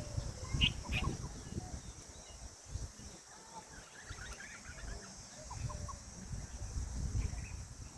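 Peahen (Indian peafowl) giving a few short calls about a second in, with fainter chirping calls in the middle.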